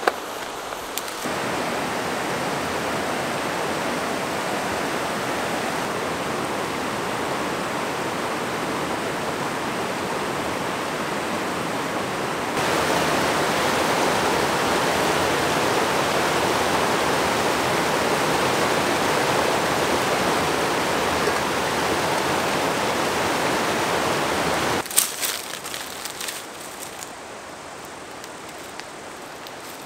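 Steady rush of a small river tumbling over rock rapids, getting louder about halfway through and cutting off near the end. A few brief knocks follow over a quieter background.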